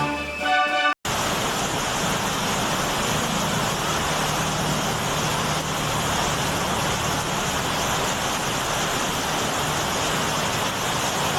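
Steady road traffic noise, an even hiss of vehicles and tyres on a wet, partly flooded road, with a low engine hum from a passing vehicle a few seconds in. It starts after about a second of orchestral music that cuts off abruptly.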